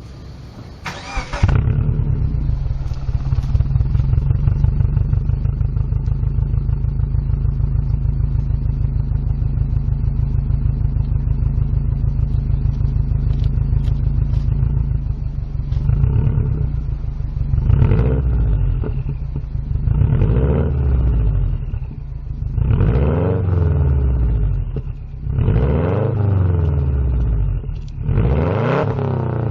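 Subaru SG5 Forester's flat-four engine breathing through a Ganador titanium aftermarket exhaust: it cranks briefly and catches about a second in, idles steadily, then from about halfway is blipped about six times, each rev rising and falling back to idle.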